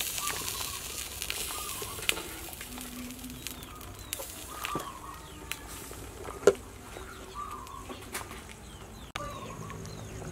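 Chickens clucking, short calls repeating about once a second, with a few sharp knocks; the loudest knock comes about six and a half seconds in.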